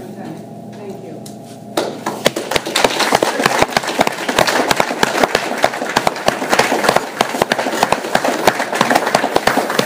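Audience in a meeting room breaking into applause about two seconds in, a dense run of irregular hand claps that carries on.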